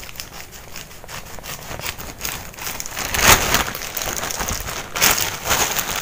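Thin black plastic mailer bag and its wrapping crinkling and rustling in a dense, crackly run as hands pull a package out of it, loudest about three seconds in and again near five seconds.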